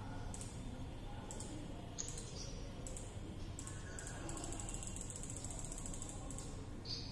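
Computer mouse clicking several times, with a run of rapid scroll-wheel ticks about four seconds in that lasts roughly two seconds; a low steady hum underneath.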